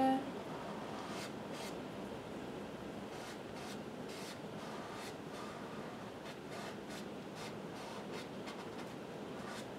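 Paintbrush strokes scrubbing gray paint across a canvas: faint, repeated brushing and rubbing, irregular in rhythm, over a steady hiss.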